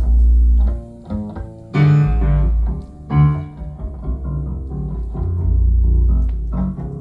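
Recorded music played from a vinyl record over Matter open-baffle hi-fi loudspeakers, with deep, long-held bass notes under shorter struck notes.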